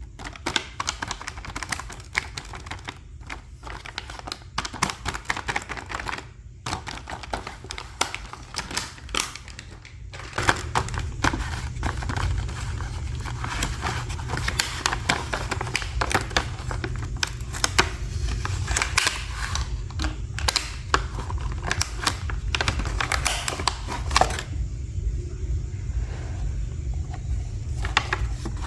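Plastic toy pieces and packaging handled during an unboxing: quick irregular clicks, taps and crinkles, over a steady low hum that gets louder about ten seconds in.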